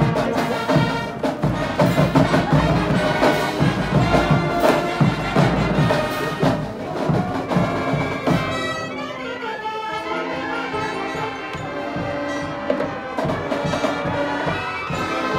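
Student marching band of brass and drums playing: brass over heavy, dense drumming. About eight seconds in the drumming thins out, leaving mostly held brass notes.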